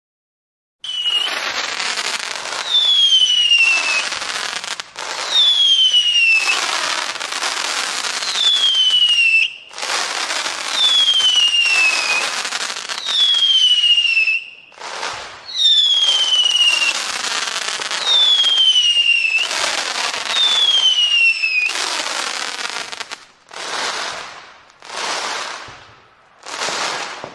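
Fireworks going off one after another with crackling, most of them with a whistle that falls in pitch over about a second. They start about a second in. Near the end the bursts are shorter and softer, with no whistle.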